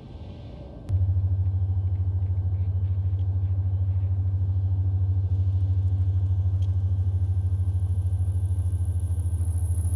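A deep, steady low hum starts abruptly about a second in and holds, with a fast, even flutter in its level.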